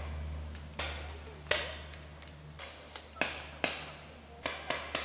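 Paintball markers firing: sharp single pops about a second apart, then a quick string of shots near the end.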